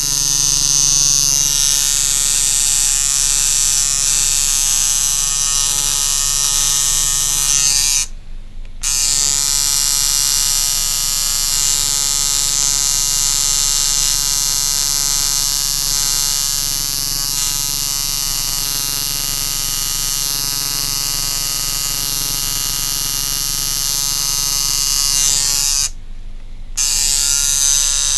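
Coil tattoo machine buzzing steadily as it puts line work into skin. It stops twice for about a second, about a third of the way in and again near the end.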